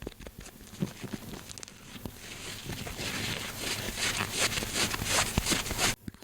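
Close-miked ASMR trigger sounds: scattered light taps, then from about two seconds in a dense crackling rustle that builds and cuts off abruptly near the end.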